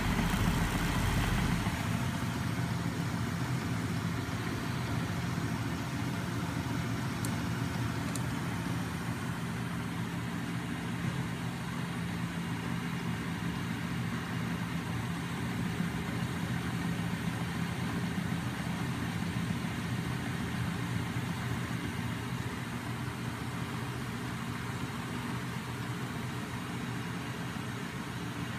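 Small 12 V DC electric motor spinning a heavy flywheel on a homemade magnet-motor rig, with its other DC motors turning as generators: a steady mechanical hum and whir. A deeper rumble drops away about two seconds in.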